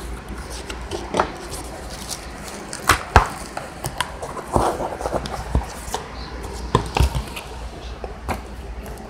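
Cardboard packaging being handled and pulled open: scattered sharp knocks and clicks, with a crackling rustle about halfway through.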